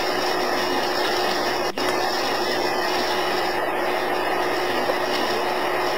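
Steady hiss with a constant low hum, broken by a brief dropout and click a little under two seconds in.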